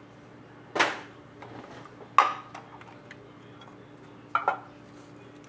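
Clear hard-plastic trading card case being opened and its lid pulled off: a few sharp plastic clicks and knocks, the loudest a couple of seconds in, with a quick double click later.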